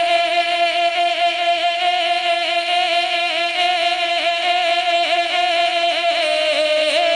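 A male naat singer holds one long sung note with a slight waver in pitch.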